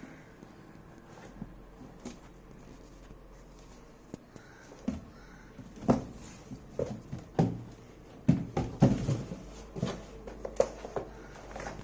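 Keyboard's cardboard box and packaging being handled and opened: irregular knocks and rustles, sparse at first and busier from about halfway through.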